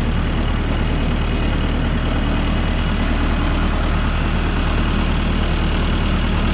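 Tractor engine running steadily at a low, even speed while the tractor drives along.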